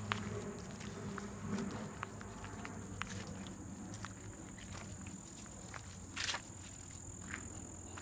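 A steady, high-pitched insect chorus trilling without a break, with scattered crunching footsteps on a gravel path and one louder scuff about six seconds in.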